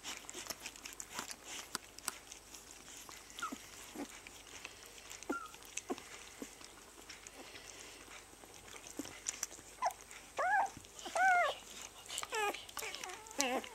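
One-week-old rough collie puppies suckling on their mother, with many small clicks throughout. From about ten seconds in, a puppy gives several high squeaks and whines that slide up and down in pitch.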